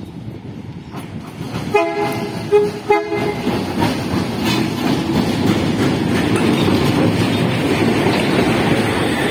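Diesel locomotive sounding its horn twice, a longer blast then a short one, as it approaches; then the engine and running gear grow loud as it passes close by.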